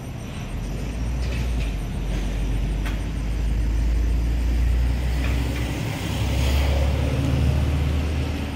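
Steady low rumble of motor vehicle traffic, swelling a little about six seconds in.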